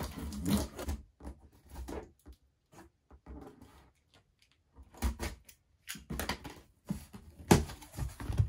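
Cardboard shipping box being opened: a blade scraping along and slitting the packing tape, then the cardboard flaps rustling and scraping as they are pulled open. There are a few knocks of the box, the loudest about seven and a half seconds in.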